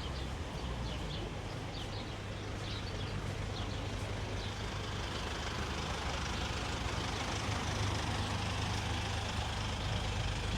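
Low, steady rumble of a motor vehicle's engine that grows louder about halfway through, over general outdoor street noise, with faint high chirps in the first few seconds.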